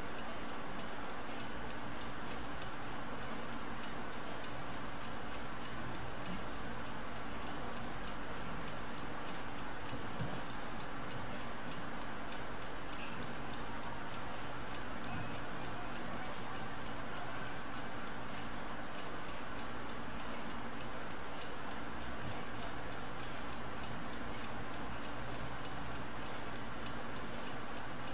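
Mechanical Smiths seconds stopclock running, ticking rapidly and evenly, over a steady low hum.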